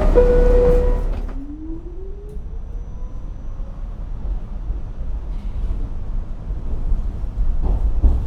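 New York City subway train heard from inside a car: a chime tone ending about a second in, then a whine rising slowly in pitch as the train pulls away, over a steady low rumble.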